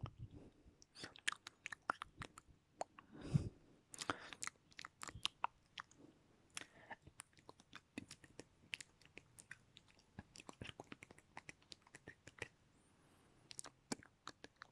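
ASMR mouth sounds: many quick, irregular wet clicks and smacks of tongue and lips, with one longer breathy puff about three seconds in.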